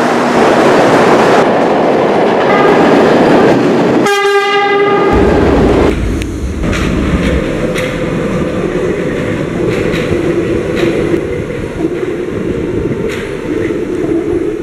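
Subway train running at speed with a loud rush of wheel and motor noise. About four seconds in there is a brief pitched horn blast, then quieter rolling with scattered sharp clicks of wheels over rail joints.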